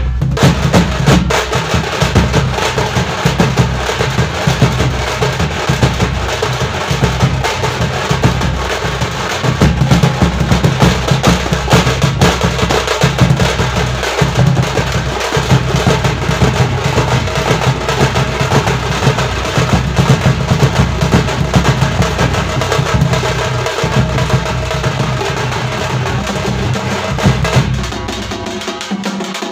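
A thappattai (parai) drum ensemble playing a fast, loud, dense rhythm: stick-beaten frame drums together with a large bass drum and a side drum. Near the end the deep low drum sound falls away while the lighter frame-drum beating carries on.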